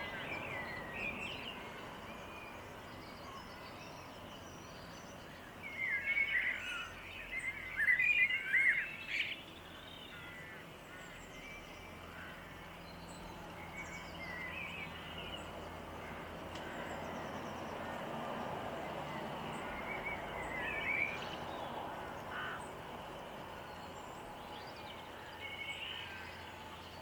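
Small garden songbirds chirping and twittering in scattered phrases, busiest and loudest for a few seconds about a quarter of the way in, over steady background noise.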